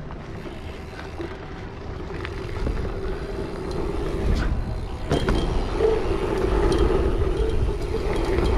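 A dirt jump bike rolling fast over packed dirt jumps: the tyres run on the dirt and wind rushes over the helmet camera's microphone, getting louder as the bike picks up speed. There is a sharp thump about five seconds in.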